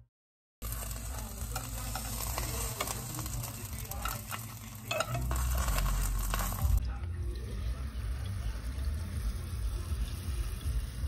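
A spoon stirring and scraping in a metal cooking pot on the stove, with frequent small clicks, after a brief moment of silence at the start. From about seven seconds in, a steadier bubbling and sizzling from dumplings cooking in boiling water.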